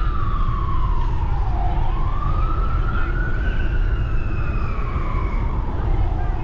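Emergency vehicle siren in a slow wail. Its pitch falls to a low point about two seconds in, rises again and falls once more near the end, over a steady low rumble.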